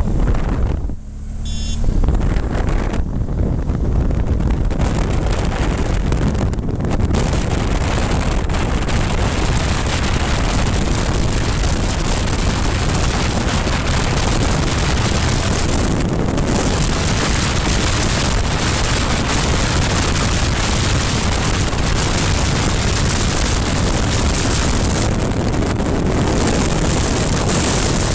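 Wind rushing over the camera microphone on a moving BMW R1200 GS Adventure motorcycle, mixed with its boxer-twin engine and tyre noise. After a brief dip about a second in, the noise rises as the bike accelerates away and then holds steady at road speed.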